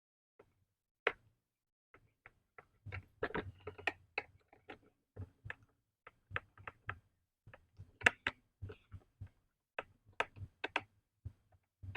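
Irregular light clicks and knocks of hard objects being handled, coming in quick clusters, with the sharpest click about eight seconds in.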